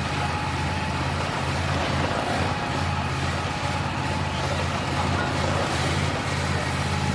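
Fire engine's diesel engine running steadily to drive its pump, drawing floodwater through the hoses: a constant low drone with no change in revs.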